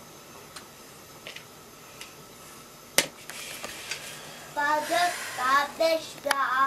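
A metal box grater set down with a sharp clack about three seconds in, after a few faint taps. From about four and a half seconds a young child sings in a high voice.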